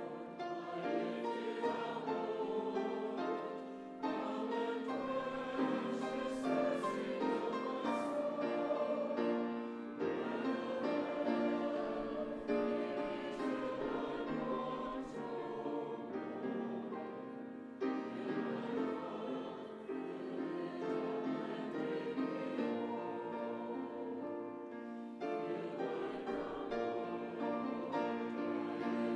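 Church choir singing with piano accompaniment, in long sustained phrases with brief breaks between them.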